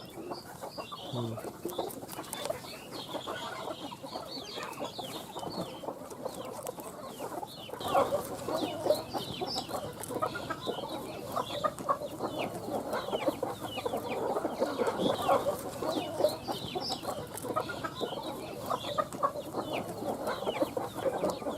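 Chickens clucking and cheeping continuously, with many short clicks and chirps, busier from about a third of the way in.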